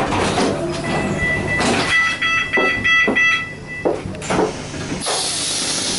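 Passenger train: a steady electronic tone, then about five quick beeps at roughly four a second, with knocks from the carriage. About five seconds in, a loud hiss of compressed air starts.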